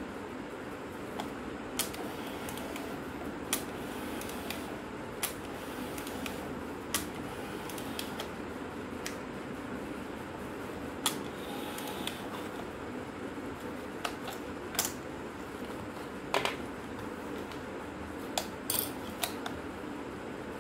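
Sharp plastic clicks and knocks, irregularly every second or two, as an old compact film camera's plastic body is handled and its parts pressed, over a steady background hum.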